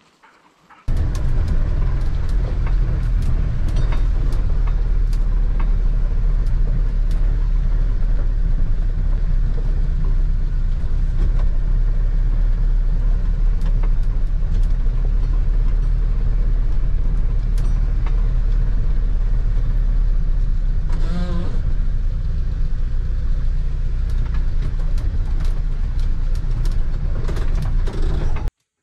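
Off-road van, most likely a UAZ-452 'bukhanka', heard from inside its cabin while driving on a rough forest track: a loud, steady low rumble of engine and road with knocks and rattles from the body. It starts about a second in and cuts off sharply just before the end.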